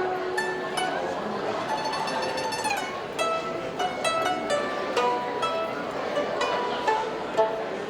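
Music played on plucked string instruments, a stream of short plucked notes with a quick sweeping run of notes about two seconds in.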